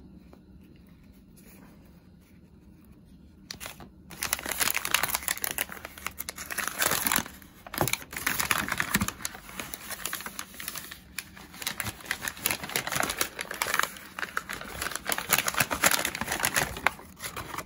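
Paper gift wrapping crinkling and rustling as it is unfolded and pulled open by hand. It starts about four seconds in after a quiet stretch, with short pauses in the middle.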